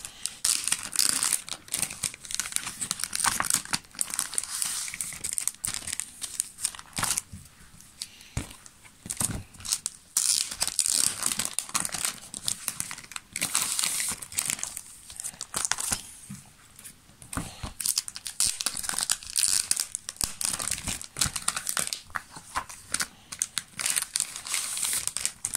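Clear plastic comic-book bags crinkling and rustling as comics on cardboard backing boards are slid in and the bags' adhesive flaps are peeled and pressed shut, in irregular crackly bursts.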